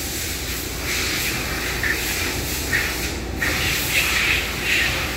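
The O-ring piston of a Quincy QMB-25 compressor's air inlet valve is being pushed in and out of its bore by hand. It gives a series of short rubbing hisses, about one a second, as the valve is checked for free, proper movement.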